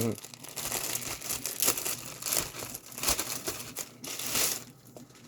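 Plastic bag crinkling and rustling as it is handled and opened, with irregular crackles that die down near the end.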